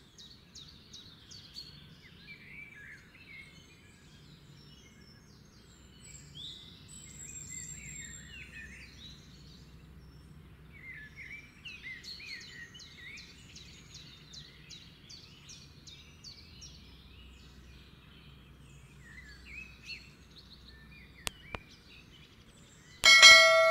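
Birds chirping and singing in quick repeated trills over a faint low hum. Near the end comes a loud, bright ding with a ringing tail, a subscribe-button chime.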